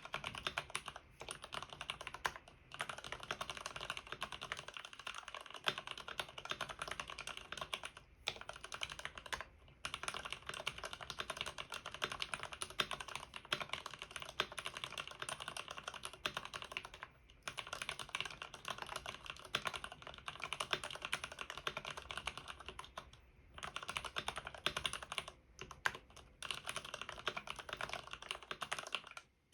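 Typing on an Arkon FX2 mechanical keyboard with Cherry MX RGB Red linear switches, lubed with a Krytox 105/205 mix, Permatex on the stabilizers and foam damping inside. It gives a dense, steady clatter of keystrokes, broken by short pauses every few seconds.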